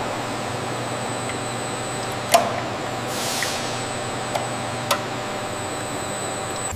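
Steady machinery hum with a thin high whine over it, broken by a few sharp clicks, the loudest about two and a half seconds in, and a brief hiss near the middle.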